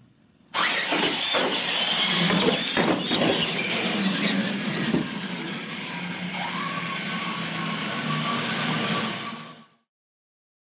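Two radio-controlled monster trucks launching and racing a straight-line drag, their motors whining, rising and falling in pitch, with a few knocks in the first few seconds. The sound cuts off suddenly near the end.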